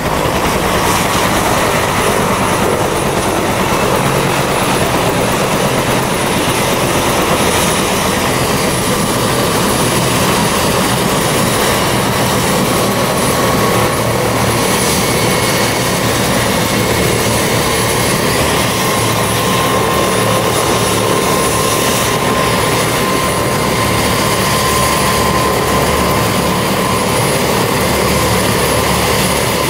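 Bell 205 helicopter with its single turboshaft engine running on the ground and the main rotor turning: a loud, steady turbine whine over the rotor's noise.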